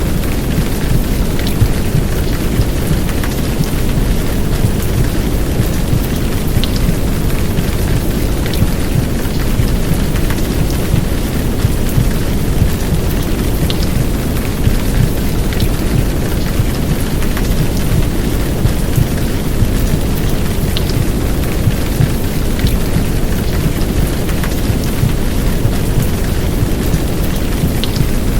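Steady heavy downpour rain mixed with a low, muffled womb-sound rumble, forming one continuous wash of noise with scattered raindrop ticks.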